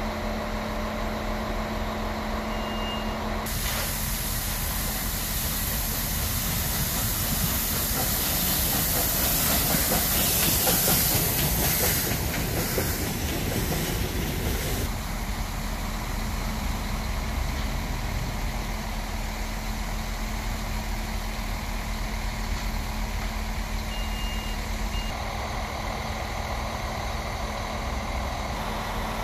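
Ol49 steam locomotive venting steam in a loud, steady hiss. The hiss starts about three and a half seconds in, is loudest around ten seconds and cuts off about fifteen seconds in. A steady low hum runs underneath.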